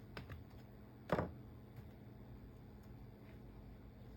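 Faint clicks from handling the open laptop's parts and tools, with one louder short knock about a second in, over a low steady hum.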